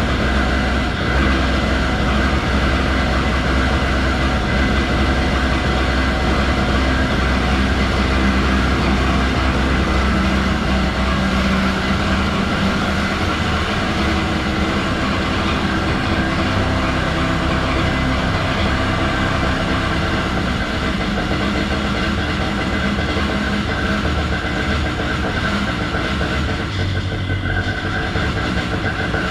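Vittorazi Moster 185 Plus single-cylinder two-stroke paramotor engine running at idle, with a rough idle that the owner is documenting; its note shifts slightly a little under halfway and dips briefly near the end.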